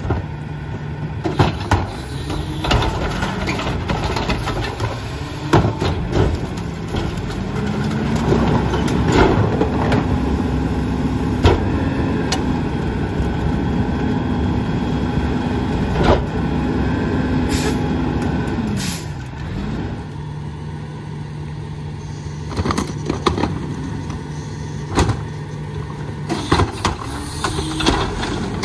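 Mack LR garbage truck's diesel engine idling, then revving up and holding for about ten seconds while the McNeilus rear loader's hydraulic packer runs its compaction cycle, before dropping back to idle. Sharp clanks and knocks from the cart tipper and packer are scattered through.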